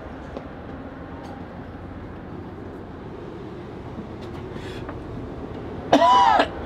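Steady low rumble of a ship's machinery and hull, heard from inside a cabin at sea. Near the end a loud, short high-pitched squeal, rising then falling in pitch, cuts in for about half a second.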